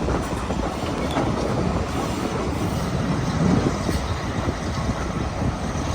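Heritage railway train running on the line: a steady rumble with a few faint clicks from the wheels on the rails.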